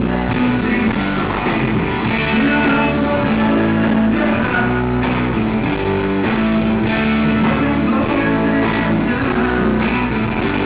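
Live rock band playing: bass guitar holding low notes under electric guitar and drums.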